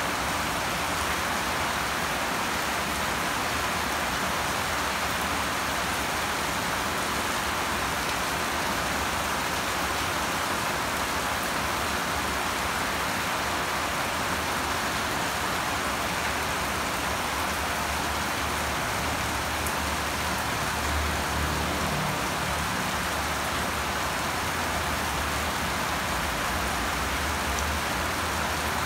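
Heavy rain falling steadily on the ground and nearby roofs: an even, unbroken hiss.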